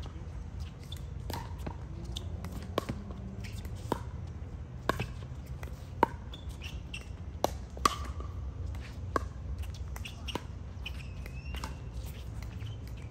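Pickleball rally: paddles striking a hard plastic ball in sharp pops about once a second, some much louder than others, with a short squeak near the end.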